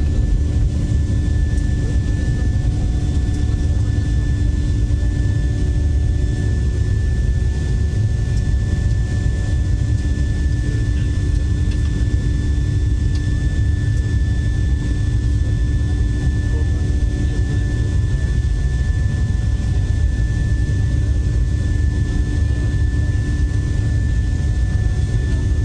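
Boeing 737-800 CFM56 jet engines running steadily: a constant heavy rumble with several steady whining tones held above it, unchanging in level.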